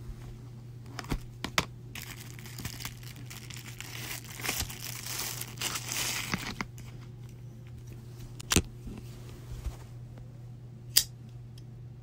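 Clear plastic wrapping crinkled and torn off a folding pocket knife, with a burst of crackling a few seconds in. A few sharp clicks from handling the knife and its box, the loudest near the end.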